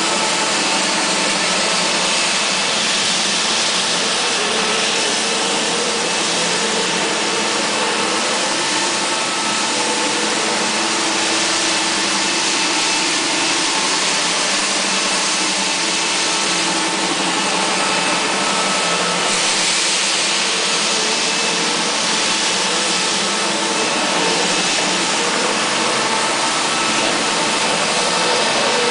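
Salla 350BTSL2 floor scrubber-dryer running steadily while scrubbing a wet, soapy tiled floor: its brush and suction motors make an even whirring hiss.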